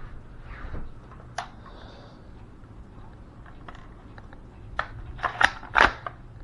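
Handling noise: scattered sharp clicks and knocks with light rustling, and a quick run of louder knocks about five to six seconds in.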